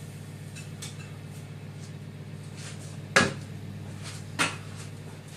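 Two sharp clinks of kitchen pans or utensils about a second apart, the first the louder, over a steady low hum.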